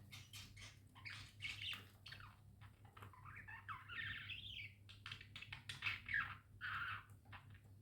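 Budgerigars chirping: quick short chirps and clicks, with a longer warbling call about three seconds in.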